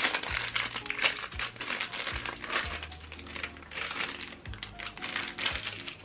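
Crinkling and rustling of a small toy packet being torn open, over background music with a bass line and a steady beat.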